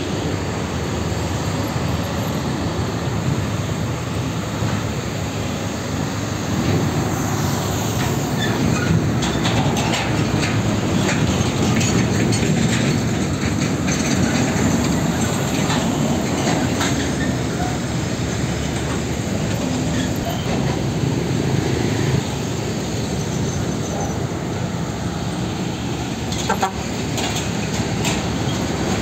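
Diesel container trucks pulling semitrailers past, engines running with steel rattling and clanking from the trailers and containers. The clanks come thickest from about 8 to 17 seconds in and again near the end.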